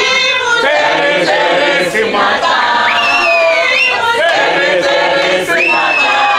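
A group of people singing and chanting a celebration song together, with high cries gliding in pitch over the singing a few times.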